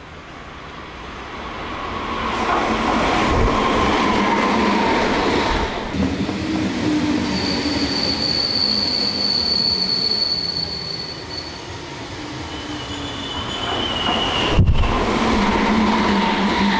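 Meitetsu electric train running by, a loud rumble of wheels and motors that builds up after about two seconds and stays loud, with a high, steady squeal for about four seconds in the middle and a shorter one near the end.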